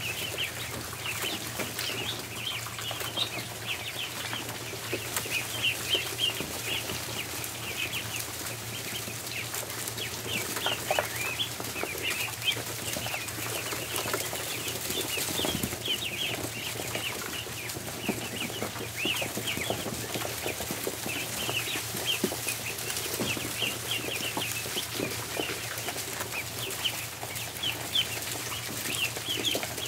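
Many ducklings peeping together: a continuous chorus of short, high peeps overlapping one another.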